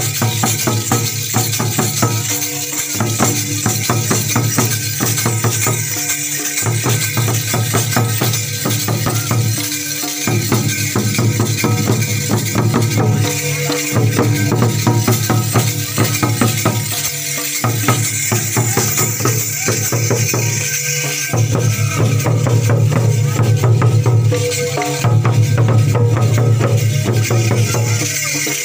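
Folk drumming on hand-held drums, beaten in a fast, busy rhythm whose low drum tone drops out and returns in a cycle about every three and a half seconds, with a bright metallic jangle over it.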